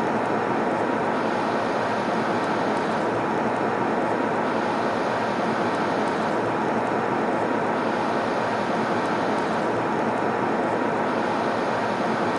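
Steady airliner cabin noise in flight: an even rush of engine and airflow noise, with a faint steady hum running through it.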